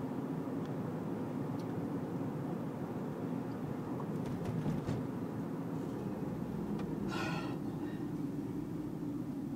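Steady low rumble of a car's engine and tyres on the road, heard from inside the moving car. About seven seconds in, a brief high-pitched sound rises over it.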